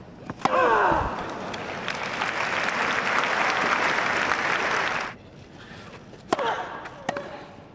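A tennis ball is struck hard by a racket, with a player's falling cry straight after. Then a crowd applauds on grass-court tennis for about four seconds, and the applause cuts off suddenly. Near the end there are two more racket strikes on the ball, the first with a short grunt.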